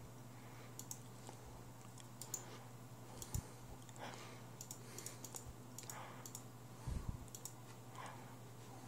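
Faint, scattered clicks of a computer mouse and keyboard being operated, over a steady low hum, with a couple of soft knocks about a third of the way in and again near three-quarters through.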